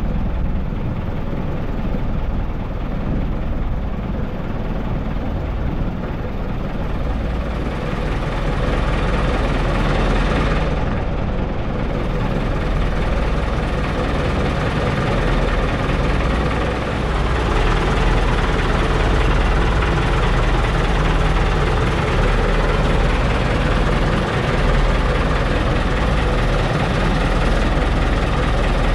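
A motorized outrigger boat's engine running steadily underway, a continuous low hum with a hiss of water and air.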